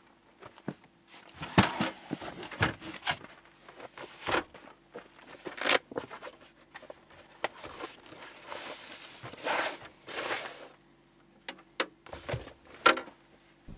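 Green canvas camp-stretcher bag being handled on a vehicle tailgate: irregular rustling and scraping of the canvas and its webbing straps, broken by sharp clicks and knocks, the loudest about a second and a half in and a second before the end.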